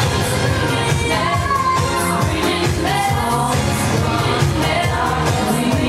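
Pop song with singing over a steady dance beat.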